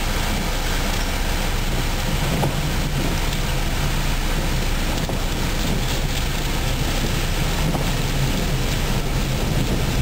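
Tropical-storm wind and heavy rain heard from inside a car: a steady rush of wind and rain against the car, with a low rumble underneath.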